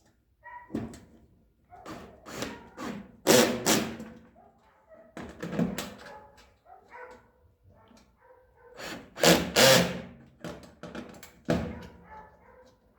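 Dog barking in a string of separate barks, loudest around the middle of the first half and again later on.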